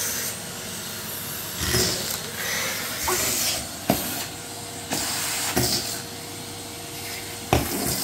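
Henry vacuum cleaner running with a steady hiss of rushing air, surging louder now and then as the wand moves, and a few sharp knocks of the metal wand against the floor.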